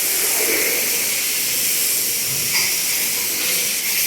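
Steady hiss of a water jet spraying during washing-down of a cattle shed.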